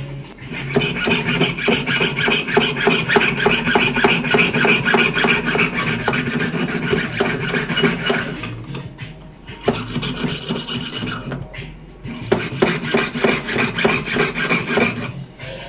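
Jeweller's piercing saw cutting a silver name pendant out of a plate held on a wooden bench pin: quick back-and-forth strokes, with two short pauses in the second half.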